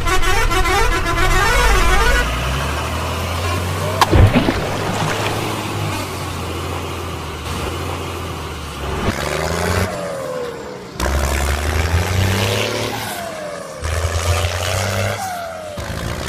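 Truck engine sound effects over a toy dump truck scene, with a sharp bang about four seconds in and the engine note falling in pitch several times in the second half.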